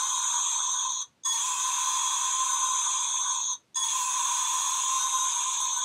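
Toy T-rex sanitizer-holder keychain playing its built-in roar sound effect through a tiny speaker, thin and tinny with no low end. The roar repeats, broken by two short gaps about a second in and about two and a half seconds later.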